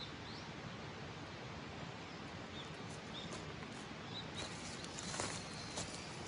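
Outdoor ambience: a steady background hiss with a few faint, short high chirps, then from a little past the middle, rustling with scattered sharp clicks.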